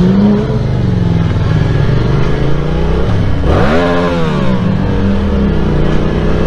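Motorcycle engine accelerating through the gears, heard from the rider's seat. Its pitch climbs and drops with each change, with one big rev sweep about three and a half seconds in.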